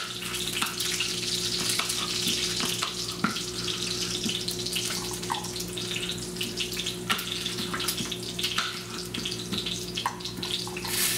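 Italian sausage sizzling as it browns in a frying pan, a steady hiss. A knife makes irregular clicks and taps on a cutting board as it slices red pepper, over a low steady hum.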